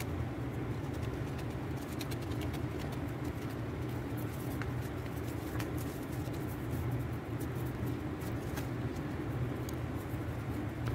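Sheets of gift-wrap paper being handled and folded, giving faint scattered crinkles over a steady low background hum.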